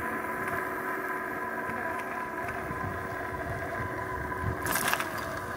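Electric bike's geared hub motor whining steadily while riding, over a low wind rumble on the microphone. A brief sharp rattle comes near the end.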